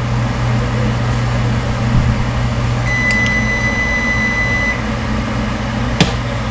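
Microwave oven running with a steady electrical hum while it heats soft-plastic lure material. A single long electronic beep sounds about three seconds in, and there is a sharp click near the end.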